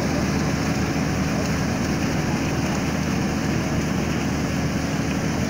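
Kubota DC35 rice combine harvester running steadily while it harvests: a continuous engine drone with the noise of its cutting and threshing machinery.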